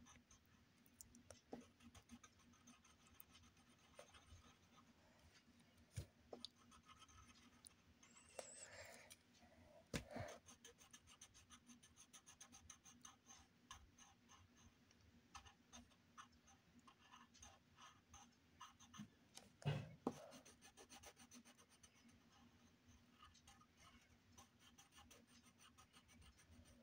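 Faint scratching of a coloured pencil on paper as it shades in small strokes, with a few louder knocks along the way.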